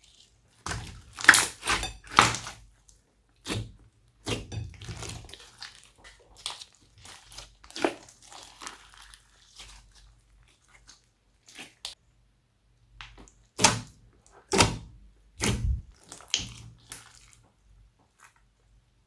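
Glossy slime being mixed and pressed by hand, making an irregular run of wet, sticky squishes and pops. The sounds are louder in a cluster early on and again about three-quarters of the way through.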